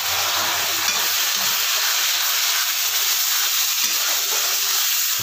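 Ground ginger, garlic, onion and green chilli paste sizzling steadily in hot oil in a kadhai as it is stirred with a slotted spatula.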